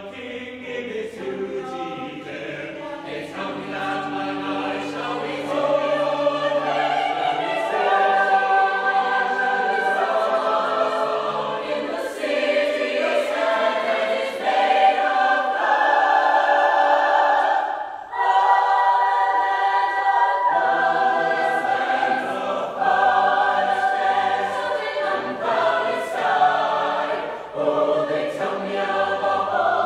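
Mixed-voice choir of women and men singing in parts: held chords that grow louder about six seconds in, with short breaks between phrases.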